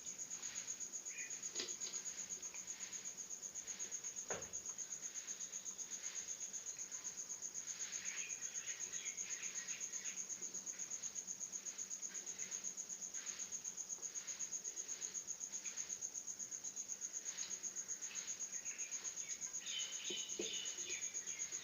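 Crickets chirping in a steady, high trill that pulses rapidly and evenly, with a few faint, irregular small sounds around the middle and near the end.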